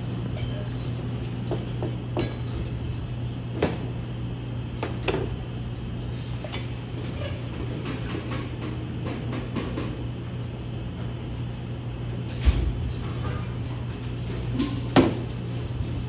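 Scattered clinks and knocks of cups, plates and metal utensils being handled on a worktable, over a steady low hum. A low thump about three-quarters through and a sharp knock near the end are the loudest.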